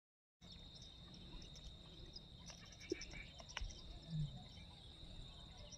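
Faint riverbank ambience with a steady high-pitched insect drone, a few faint clicks, and a soft low thump about four seconds in.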